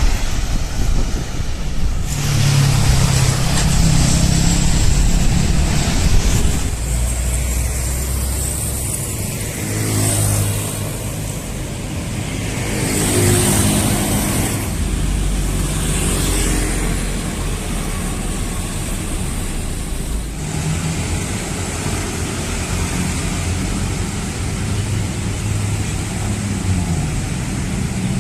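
Road traffic: motor vehicles running and passing close by, their engine notes rising and falling, with a low wind rumble on the microphone.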